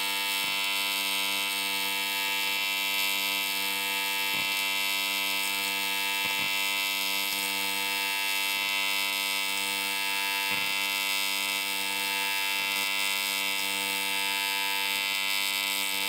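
AC TIG welding arc on aluminum buzzing steadily as a bead is laid, with a few faint ticks.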